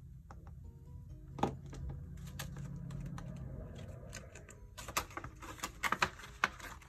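Paper banknotes handled and sorted by hand: a sharp tap about a second and a half in, then a quick run of light clicks and rustles as the bills are slid into a binder envelope.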